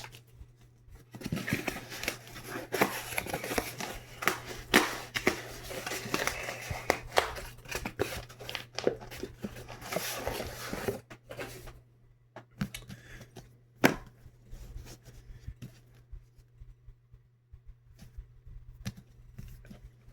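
A package being opened by hand: tearing, rustling and crinkling of the packaging with many small clicks, busy for the first ten seconds or so, then sparser handling sounds and an occasional sharp click.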